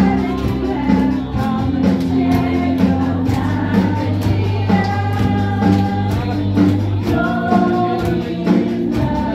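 Live praise-and-worship band playing a gospel song with singing, over a steady drum beat and bass.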